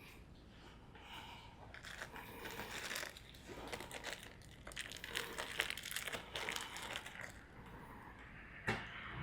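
Rustling and crinkling handling noise with many small clicks and taps as small parts are handled, and one sharper click near the end.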